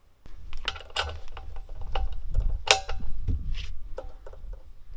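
Plastic air hose's fitting being handled and pushed into a brass quick-lock coupling on an air compressor: a run of small metallic clicks and knocks, with a sharper click a little past halfway, over low handling rumble.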